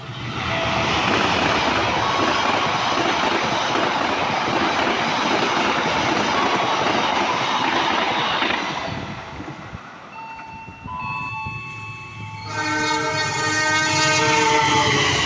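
A train passing with a steady rushing rumble of wheels on rails for about eight seconds, which then dies down. About twelve seconds in, a diesel locomotive's multi-tone air horn starts sounding loudly as a held chord.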